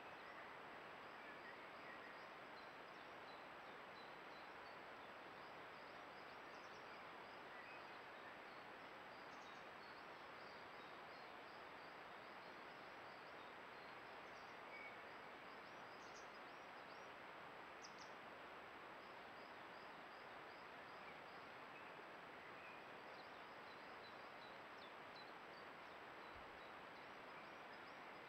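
Near silence: a steady hiss, with faint, short, high bird chirps scattered throughout.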